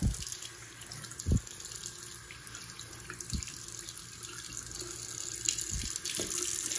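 Bathroom sink tap running, its stream splashing over a knee held beneath it and growing a little louder toward the end, with a few soft low thumps.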